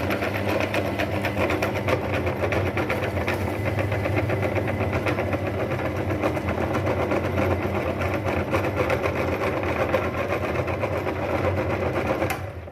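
Electric meat grinder running steadily, its motor humming under a fast, even rattle, then switched off shortly before the end.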